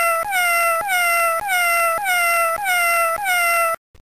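A cat meow sound effect looped over and over, the identical meow repeating nearly twice a second, each one sliding slightly down in pitch. It cuts off abruptly shortly before the end.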